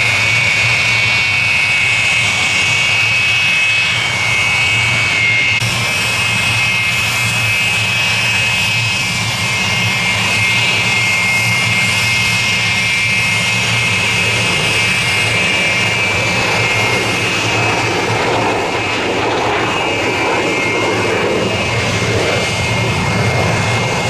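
Aermacchi MB-339 jet trainer's turbojet running, a steady high whine over a low rumble. The whine shifts about five and a half seconds in, and a broader roar grows louder in the second half.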